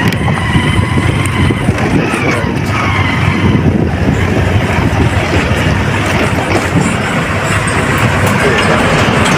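Steady motor-vehicle engine rumble with road noise.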